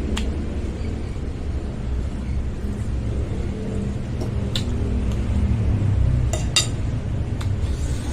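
Cutlery clinking against a bowl about five times, two of the clinks in quick succession about six and a half seconds in, over a steady low rumble.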